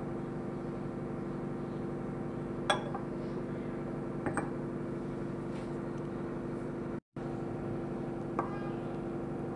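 A steady hum with several even tones runs throughout, with a few light clinks on a glass bowl, the last as a spoon goes in to mix near the end.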